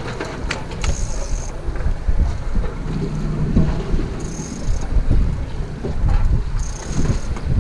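Wind buffeting the microphone over the low rumble of a small open fishing boat at sea, with a few short clicks about half a second in and a brief high-pitched hiss that comes and goes three times.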